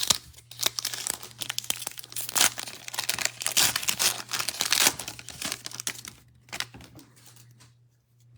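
Foil wrapper of a football trading-card pack being torn open and crinkled, crackling densely for about six seconds and then dying down to faint handling.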